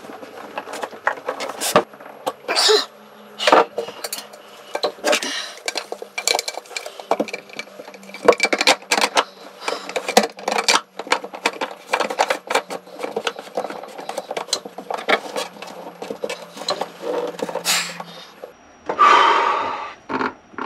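Irregular clicks, taps and light knocks of hands working plastic fittings, hose and cable on a watermaker pump module in a wooden cabinet, with a short rasp near the end.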